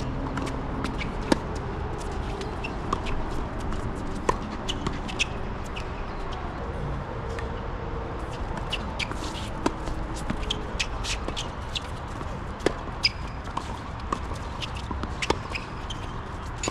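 Tennis doubles play: sharp pops of a tennis ball struck by rackets and bouncing, the loudest a second or a few seconds apart, with shuffling footsteps and short high squeaks between the shots.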